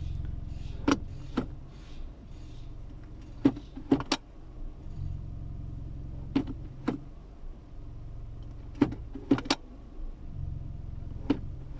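Automatic (CVT) gear selector of a 2019 Chevrolet Spark being moved through its positions, clicking sharply in pairs and threes every couple of seconds, over the low hum of the idling engine, which swells at times. The shifting is done three times to work fresh transmission fluid through the clutches before the level is checked.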